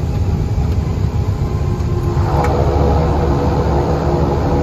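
Cessna 208 Caravan cabin noise: the PT6A turboprop engine and propeller give a steady low drone. About two seconds in, the sound grows louder and a steady whine comes in on top.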